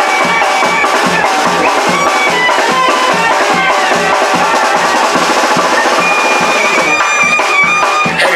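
Background music with a steady beat and a sustained melody line.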